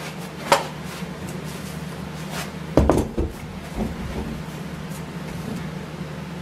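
A thick wooden board knocked and set down on a miter saw's table: a sharp click about half a second in, then a cluster of knocks about three seconds in, the loudest, and a few lighter ones after. A steady low hum runs underneath.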